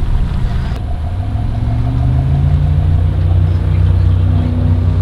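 An engine running with a low, steady rumble. Its pitch rises a little after about a second, then holds.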